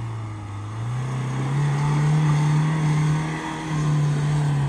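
Mahindra Thar 4x4 engine revving under load as it drives through soft sand. The pitch climbs about a second in, drops briefly about three and a half seconds in, then picks up again.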